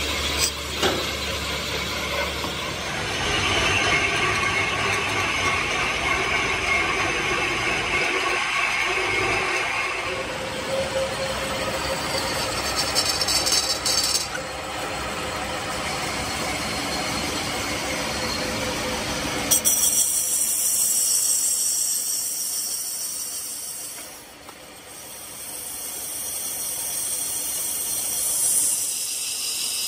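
Metal lathe turning a cylinder sleeve: the machine's running noise with a rattling, gear-like mechanical sound as the tool cuts. About two-thirds of the way through, the sound changes abruptly to a thinner, high-pitched hiss.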